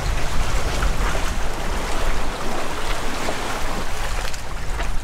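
Water rushing and splashing along the hull of a Corsair 880 trimaran under sail, with wind rumbling on the microphone.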